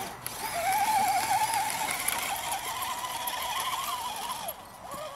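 Radio-controlled crawler truck's small electric motor and gears whining as it climbs a grassy slope, the pitch wavering up and down with the throttle, then dying away near the end.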